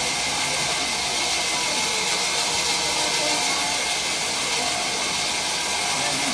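Large log band saw running, a steady hissing machine noise that holds at one level.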